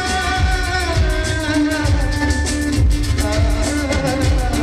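Live band music: a singer over drum kit and guitar, with a steady beat.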